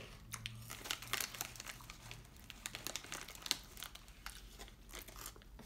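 Plastic chip bag crinkling in irregular small crackles as it is handled.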